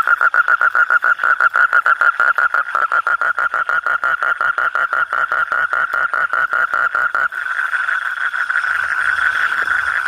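Asian common toad calling: a loud, fast pulsed trill, about eight pulses a second, that runs together into a steadier trill about seven seconds in. It is the male's mating call.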